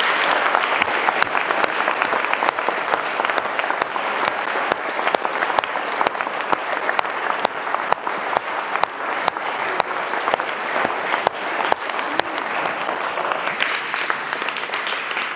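A large audience applauding steadily, dense clapping that goes on for the whole stretch and eases a little near the end.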